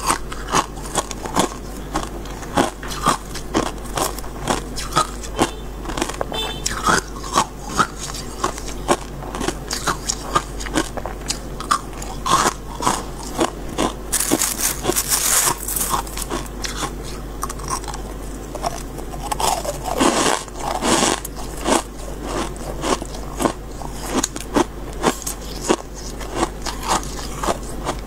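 Close-up chewing of freezer frost into a lapel microphone: a steady run of crisp crunches, with a louder hissing rustle about halfway through.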